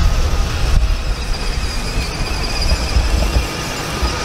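Low, uneven rumble of wind on the microphone, with a faint high whine from small children's battery-powered ride-on toys, a toy motorbike and a toy bus, driving across brick paving.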